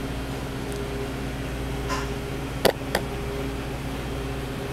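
Steady low mechanical hum, like a running appliance motor, with two sharp clicks a third of a second apart a little past the middle.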